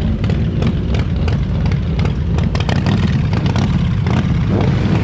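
Mini bike engine running steadily and loudly.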